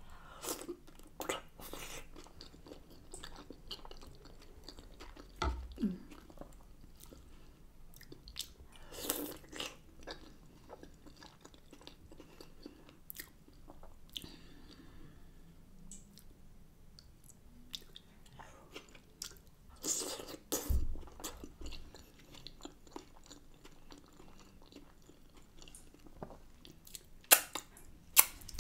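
A person chewing and biting food from a shrimp boil close to the microphone, with scattered wet mouth smacks and clicks. Louder bites come about a third of the way in, around two-thirds through, and twice near the end.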